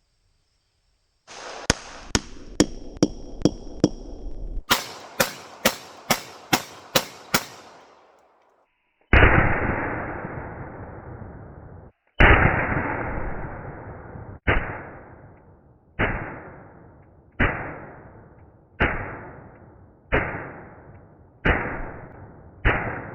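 Gunshots: first a few sharp cracks with a faint ringing tone, then a quick string of about seven sharp shots. After that come about ten duller, heavier shots, each trailing off over a second or more and cut short by the next.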